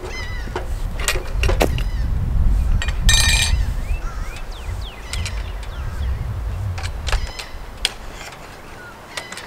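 Scattered metal clicks and clanks of antenna-mount hardware being handled, including a brief ringing metallic jangle about three seconds in, over a low rumble of wind on the microphone. A few bird chirps sound faintly.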